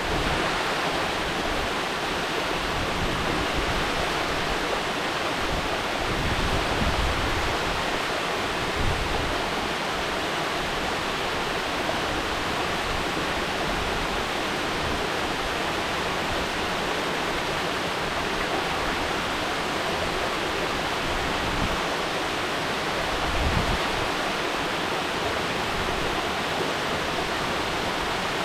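Mountain waterfall: a steady, dense rush of falling water, with a few brief low rumbles, the strongest near the end.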